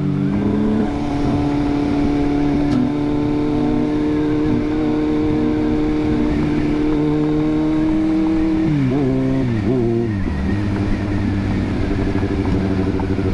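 Engine noise from a Kawasaki Z750R's inline-four with an aftermarket Shark exhaust, mixed with the V8 of a Ferrari 458 Spider running just ahead. The engines hold steady revs under road and wind noise, then the revs drop about nine seconds in.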